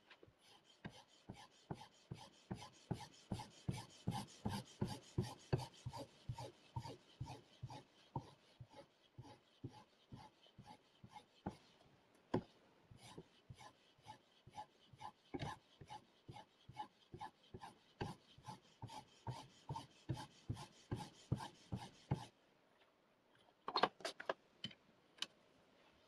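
A CBN sharpening stone on the guide rod of a KosiM knife sharpener is stroked back and forth along the edge of a clamped VG-10 steel knife, with a scraping stroke about three times a second. The strokes stop about 22 seconds in, and a few sharp clicks follow near the end.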